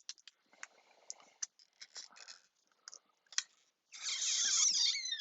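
Scattered small clicks and taps of fingers and tools on an open iPhone 6s, then about four seconds in a louder, noisy squeak lasting about a second, its pitch sliding, as a battery adhesive strip is stretched and pulled out from under the battery.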